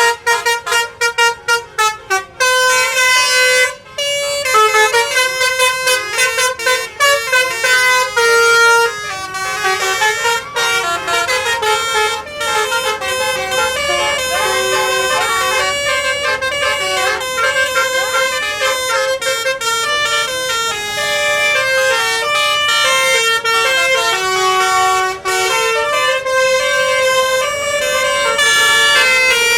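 Bus telolet basuri horn, a set of multi-tone air horns playing a melody: short clipped toots for the first couple of seconds, then a continuous tune of quickly changing notes.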